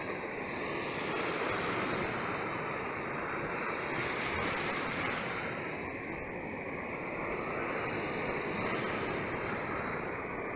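Sea waves washing in, a continuous surf hiss that swells gently every few seconds.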